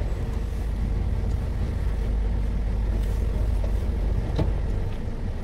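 Car engine running at low speed as the car creeps forward, a steady low rumble heard from inside the cabin.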